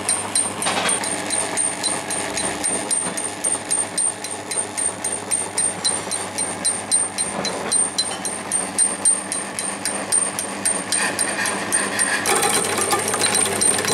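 Homemade charcoal grinder running, its bladed drum spun by a lathe through a V-belt and pulleys, with a rapid, even clatter and a thin high whine. Near the end the noise gets louder and rougher.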